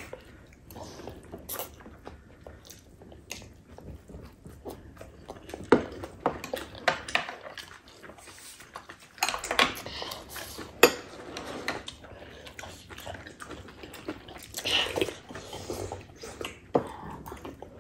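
Chopsticks and spoons clicking and clinking against ceramic bowls, with chewing between them; a few sharper clicks stand out.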